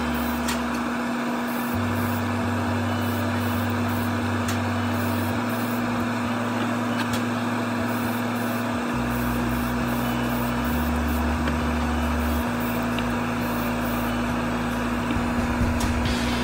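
Hobby spray booth extractor fan running, a steady rushing hiss with a constant hum. Background music with a slow, sustained bass line that changes note every couple of seconds plays over it.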